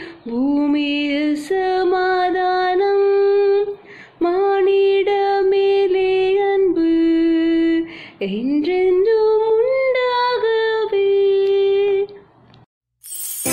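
A woman singing solo and unaccompanied, holding long notes in phrases of a few seconds with short breaths between them; her voice stops about a second before the end.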